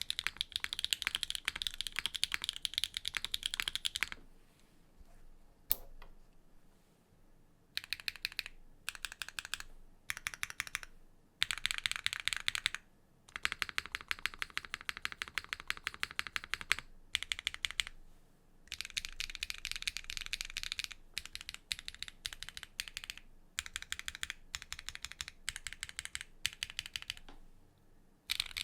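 Neo65 mechanical keyboard with a carbon fiber plate and HMX Sogurt switches being typed on: fast runs of keystrokes broken by short pauses, with a single lone keystroke at about six seconds.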